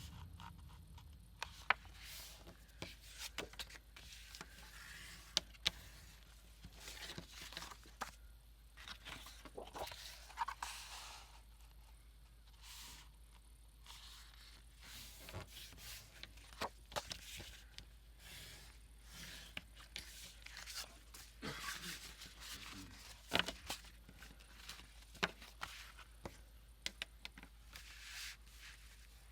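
Paper and craft materials handled on a work table: irregular rustling and scraping, with frequent short taps and clicks.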